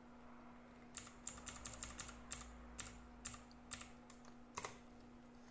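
Computer keyboard keys tapped about a dozen times in an uneven run, starting about a second in: short sharp clicks of keys stepping through an on-screen menu.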